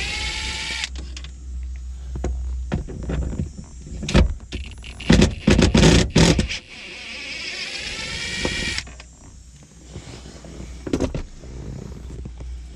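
A powered driver spinning a nut-driver bit to back out the bolts of a car's overhead console. Its motor whine rises in pitch for about the first second and again from about seven to nine seconds in, with clicks and knocks from the tool and bolts in between.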